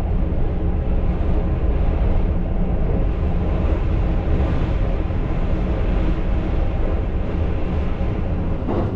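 Steady low running rumble of the JR 285 series Sunrise Seto sleeper train crossing a steel truss bridge, heard from inside the carriage.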